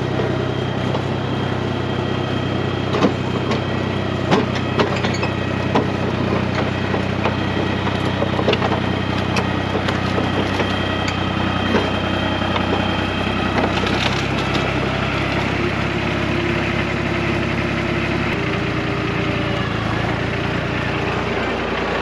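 John Deere 350B crawler dozer's engine running steadily as its steel tracks climb onto stacked wooden timbers, with sharp cracks and creaks from the wood taking the machine's weight, thickest in the first half. About three-quarters of the way in the engine note changes.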